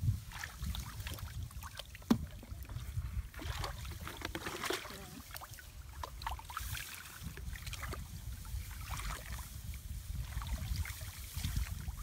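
Hands splashing and sloshing in shallow muddy paddy water, with scattered small clicks and a sharp knock about two seconds in, over a steady low wind rumble on the microphone.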